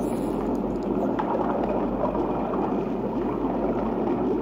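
Steady rushing, gurgling water noise of an aquarium tank.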